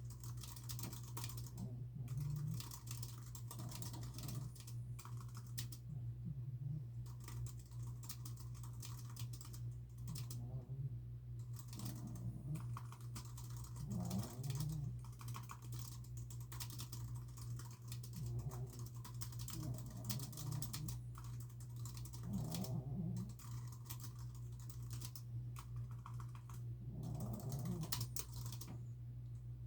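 Typing on a computer keyboard: quick runs of key clicks broken by short pauses, over a steady low hum. Soft dog snores come in now and then beneath the typing.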